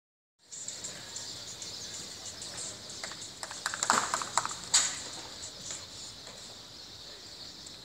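Scattered hand claps from a small crowd of spectators, thickening into a louder cluster of claps about four seconds in, over a steady high hiss.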